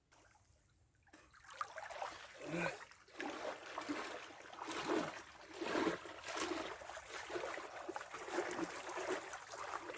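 Lake water splashing and trickling close to the microphone in irregular sloshes, starting about a second in.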